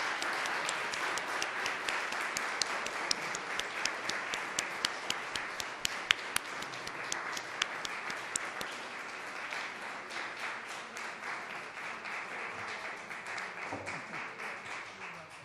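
An audience applauding, with many sharp individual claps standing out for the first several seconds. The applause then thins and fades, dying away near the end.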